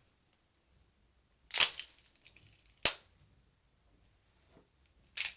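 Stalks of celery snapped by hand as foley for a bone breaking: a crisp crack with a brief splintering crackle about a second and a half in, a single sharp snap just under three seconds in, and another crackling break near the end.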